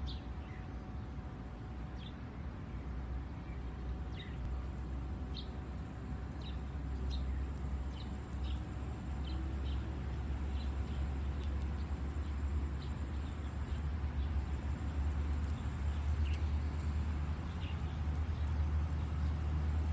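Birds chirping now and then, in short scattered calls, over a steady low rumble that slowly grows louder.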